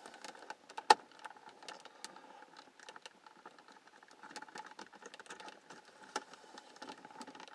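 Scattered clicks and rattles of plastic dashboard trim being worked by hand, with one sharp click about a second in, as the tabs holding the center-console gauge pods are lifted and pushed.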